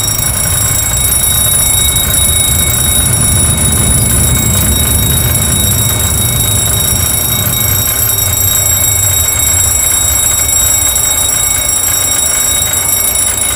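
Boeing 737 simulator's engine fire warning bell ringing continuously, signalling an engine one fire. Under it is the low rumble of the simulated aircraft braking to a stop on the runway, which eases in the second half.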